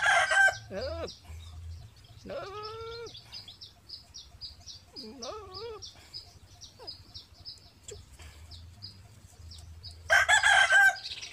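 A rooster crowing twice, once at the start and again about ten seconds in. Between the crows come two short, quieter cries that rise and fall in pitch, and a quick high chirping repeats steadily in the background.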